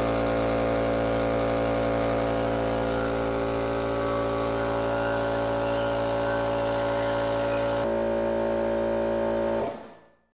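Small electric air compressor running steadily with an even motor hum, then switched off near the end and spinning down quickly. It is being test-run after years unused and runs fine.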